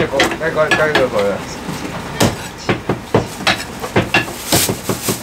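Cleavers chopping cooked meat on thick wooden chopping blocks: sharp knocks at an irregular pace, two or three a second, with voices chattering in the first second or so.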